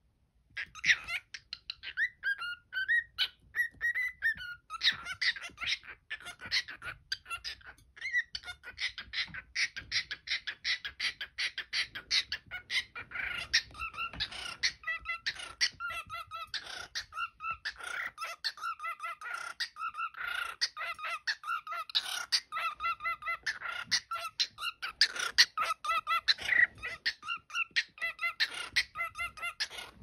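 Cockatiel chattering and warbling to its reflection in a mirror: an unbroken, fast run of clicks and short whistled notes.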